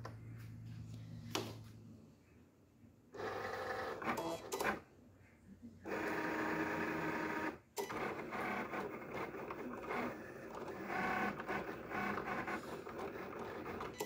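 Cricut electronic cutting machine at work: a short whir as it draws the mat in about three seconds in, then from about six seconds on its carriage motors whir steadily in shifting pitches as the blade cuts.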